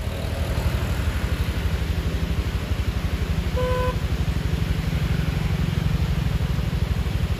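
Motor vehicle engine running close by with a steady low throb, and a short horn toot about three and a half seconds in.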